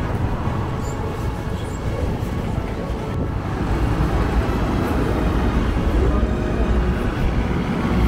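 City street traffic noise: a steady rumble of passing road vehicles, getting a little louder about halfway through, with background music underneath.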